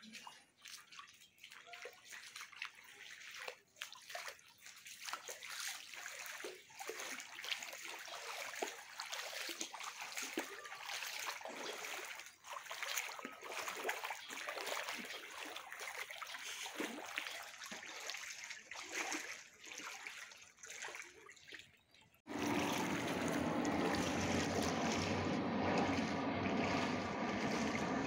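Floodwater sloshing and splashing irregularly as someone wades through it. About two-thirds of the way through it cuts off suddenly, and a louder, steady drone with a low hum takes over.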